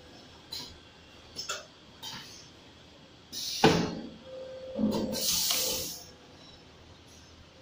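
Vertical paste packing machine cycling. A few light clicks come first. About three and a half seconds in there is a short burst of air hiss and a sharp clack as the pneumatic sealing jaws work, and about a second later a longer hiss of air being let out.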